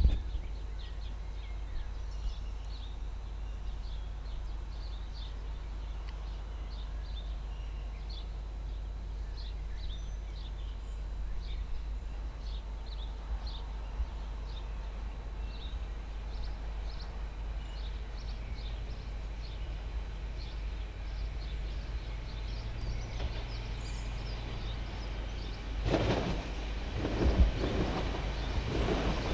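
Scattered bird chirps over a steady low background rumble, then a train approaching near the end, its noise rising as it nears.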